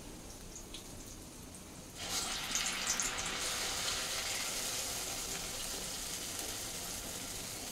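Urad dal vada batter (garelu) dropped into hot oil in a steel kadai: about two seconds in a frying sizzle starts suddenly, crackling at first, then settles into a steady hiss.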